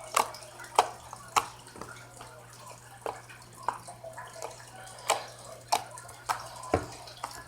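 Sticky, watery slime being squeezed and pulled by hand, making separate wet clicks and pops roughly every half second to second. There is water trapped inside the slime.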